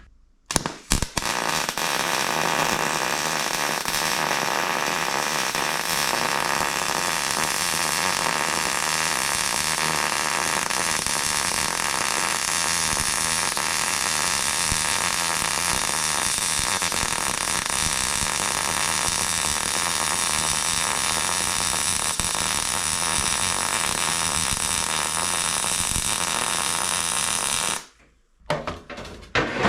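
Electric welding arc burning in one continuous, steady sizzle while a slow bead is run on 1/8-inch steel. It starts after a couple of short sputters and cuts off suddenly near the end.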